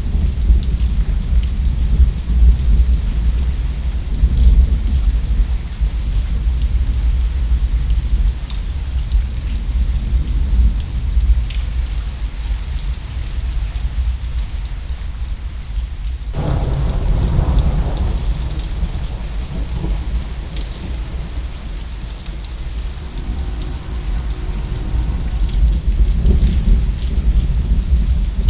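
Thunderstorm: rain falling, over a heavy continuous low rumble. The sound changes abruptly about sixteen seconds in, with a brief stronger, rougher stretch.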